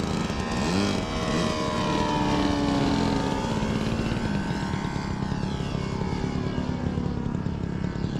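Saito FG-33R3 three-cylinder four-stroke radial engine driving an 18x8 propeller on a model plane, running steadily at part throttle. It grows louder over the first few seconds, then holds. The engine has just been adjusted after misfiring and now runs better.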